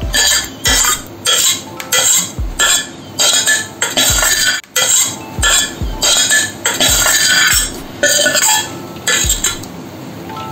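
A metal spoon scrapes thick fried masala out of a steel pan into a steel pot of chicken pieces, then stirs it in. Short strokes of metal scraping and clinking on metal come one or two a second, with a few low thuds, and grow fainter near the end.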